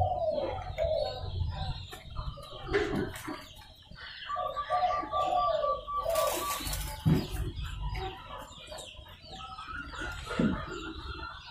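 Local zebra dove (perkutut) cooing in repeated phrases, with short chirps of other birds around it.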